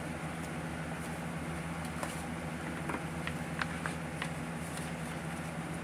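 A few faint clicks and rustles from a cash envelope binder and its sleeves being handled, over a steady low hum.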